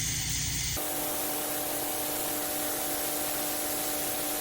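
Water running steadily from a sensor faucet into a sink, a continuous hiss of spray, with the faucet left on to test whether the water ever gets hot. About a second in, the sound changes abruptly to a brighter hiss with a faint steady hum.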